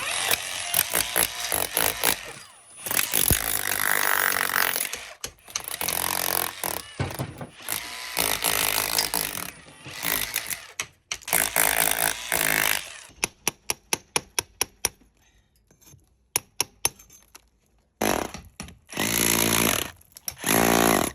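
Power tool running in loud bursts for the first dozen seconds, then a run of sharp taps, then two more short bursts near the end.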